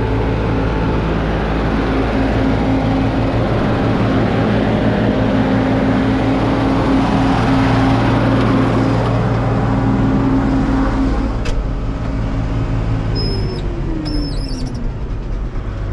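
Diesel farm machinery running steadily at working speed during silage chopping and silo filling, then easing off with the engine pitch falling near the end. A few bird chirps come in near the end.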